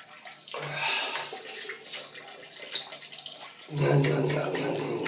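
Water running in a shower, with a man gurgling a mouthful of water in his throat and letting it spill out of his mouth. The gurgle gets louder near the end.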